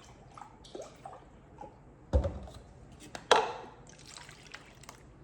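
Kitchen items knocked and set down on a counter: light clinks, then two sharper knocks about two and three seconds in, the second ringing briefly.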